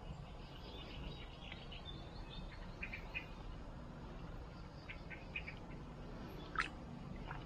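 Faint bird chirps: short calls in small clusters over low background noise, with one brief, sharper call or click a little before the end.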